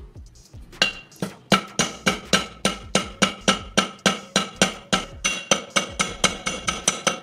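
A steel hammer striking a small rivet on the flat anvil of a bench vise: quick, regular metal-on-metal blows, about three and a half a second, each with a short metallic ring. They start about a second in and flatten the rivet.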